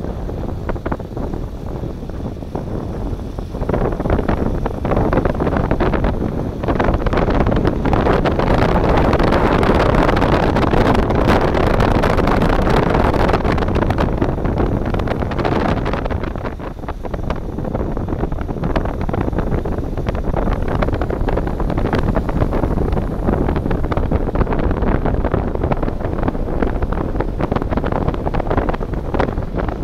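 Wind buffeting the microphone: a loud, continuous rushing noise that swells for several seconds in the first half and dips briefly a little past the middle.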